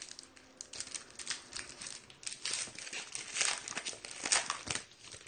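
Shiny foil wrapper of a trading-card pack crinkling in the hands as it is handled and opened: irregular crackles, loudest around three and a half and four seconds in, fading out at the end.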